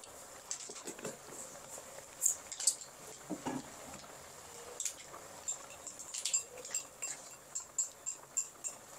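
Scattered light clicks and clinks of a utensil in a pan while a water spinach stir-fry cooks, with faint crackling from the pan.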